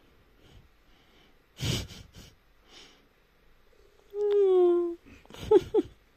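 A short breathy snort, like a sniff or a stifled laugh through the nose, about a second and a half in, followed by softer breaths. Then a drawn-out, slightly falling 'mmm'-like coo lasting about a second, with a few short vocal sounds near the end.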